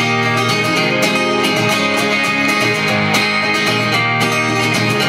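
A band playing live, an instrumental passage between sung lines, led by strummed guitar with a steady beat.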